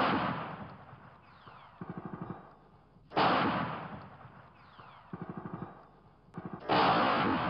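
Gunfire: three loud shots about three and a half seconds apart, each echoing and fading over a couple of seconds. Between them come short, rapid bursts of fainter automatic fire.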